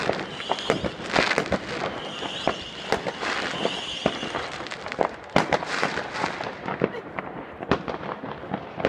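Fireworks going off: a dense, irregular run of sharp bangs and crackling pops, thinning out in the last few seconds.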